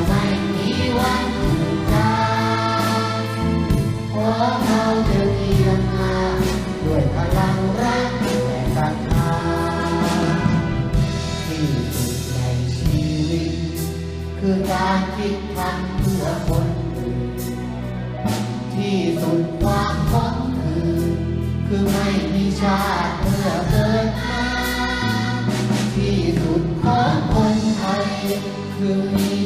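A man singing into a microphone with a children's choir, accompanied by a youth orchestra with violins.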